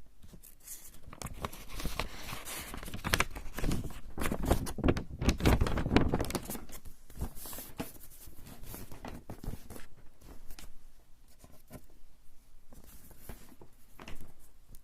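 Rubber eraser rubbed back and forth on coarse straw paper (warabanshi), a fast run of scratchy strokes that are heavier and louder about two to six seconds in.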